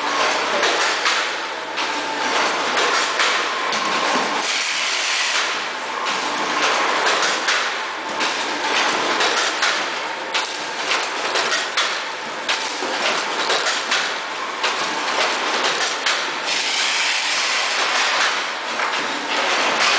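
Automatic pouch-packing machine and its conveyor running, a continuous mechanical clatter with many short knocks as it turns out sealed pouches.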